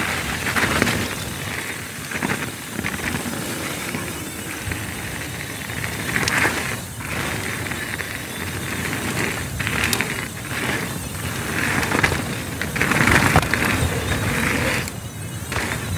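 Mountain bike rolling fast down a dirt trail: an uneven rush of tyre noise over the surface with scattered clicks and rattles from the bike, dipping briefly a couple of times.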